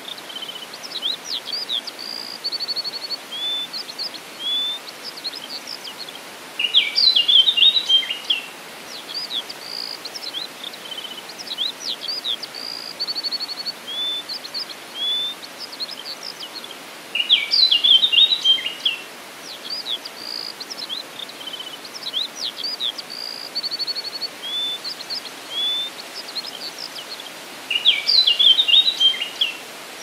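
Forest songbirds singing: many short chirps and whistles and a brief trill, with a louder, busier burst of song about every ten seconds, over a steady background hiss.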